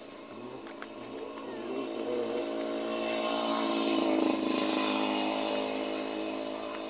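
A motor vehicle's engine running steadily, growing louder to a peak about four seconds in and then fading, as a vehicle passes by.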